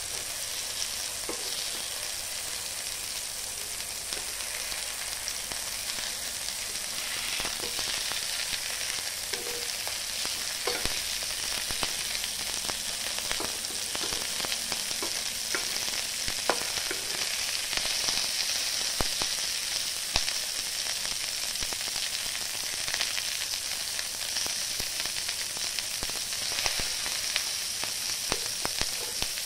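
Halved tomatoes sizzling in hot mustard oil in a pan, a steady frying hiss. Short clicks and scrapes of a metal spatula against the pan come now and then as the tomato halves are turned over.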